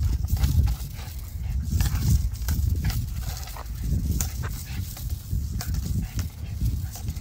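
A dog playing with a hoop on asphalt: irregular clatters and taps of the hoop and the dog's feet on the ground, over a steady low rumble.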